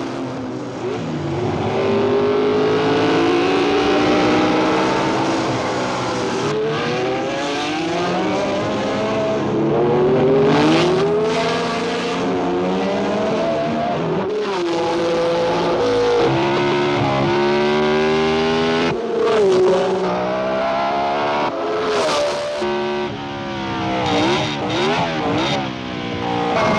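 1960s Formula One racing car engines at full throttle, their pitch climbing through each gear and dropping back at the shifts, several cars overlapping. Near the end the pitch swoops quickly up and down as the engine is blipped through gear changes.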